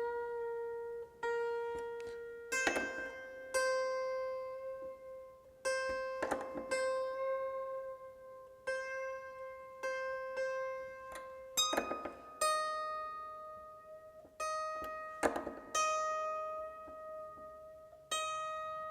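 Hammered dulcimer strings plucked one at a time by hand while being tuned by ear, each note ringing out and dying away. The pitch edges slightly up over the first few plucks and holds, and a higher note is plucked repeatedly from about two-thirds of the way through.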